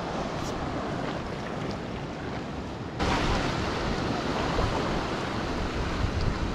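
Sea waves washing, with wind rumbling on the microphone; the noise steps up suddenly about three seconds in.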